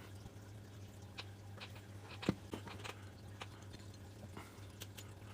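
Scattered small clicks and taps of small clutch master cylinder parts being handled and fitted during reassembly, with one sharper knock about two seconds in, over a steady low hum.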